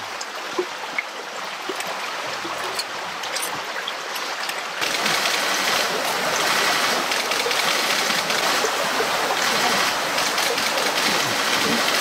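Flowing water, a steady rushing hiss like a stream, which steps up louder about five seconds in.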